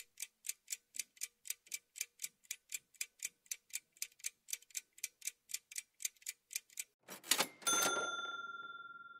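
Countdown-timer ticking sound effect, even clock ticks at about four a second for some seven seconds. It ends in a short burst of noise and then a bell-like ding that rings out and fades, marking the end of the countdown and the answer reveal.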